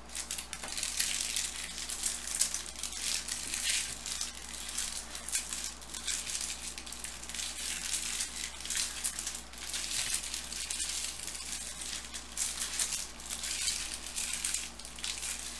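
Foil wrappers of Bowman Chrome baseball card packs crinkling and crackling as the packs are handled and opened.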